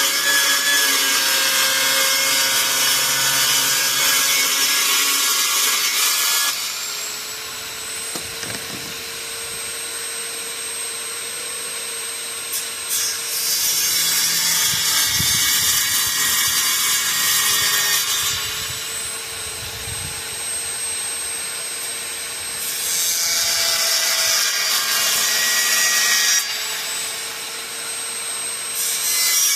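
Power saw cutting a sheet of plexiglass, its motor whining steadily while the cut gets louder and eases off in stretches of a few seconds.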